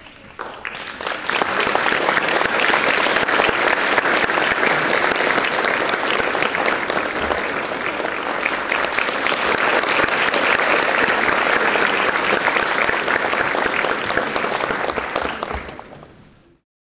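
Audience applauding: many hands clapping at once. It builds up within the first second or two, holds steady, and dies down near the end.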